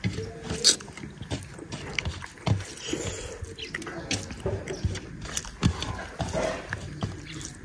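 Wet, open-mouthed chewing and lip smacking of rice and chicken curry, with irregular clicks and smacks, alongside fingers mixing rice on a steel plate.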